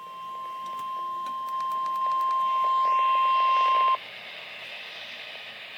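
NOAA Weather Radio's 1050 Hz warning alarm tone, a single steady pitch growing louder in steps, signalling a severe thunderstorm warning. It cuts off suddenly about four seconds in, leaving radio hiss.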